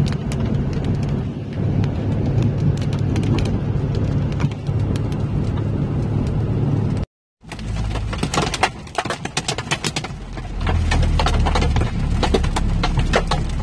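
Steady engine and road noise inside a pickup truck's cab driving on a wet highway. After a brief cut about seven seconds in, many sharp ticks of heavy rain striking the windshield come over the cab's low rumble.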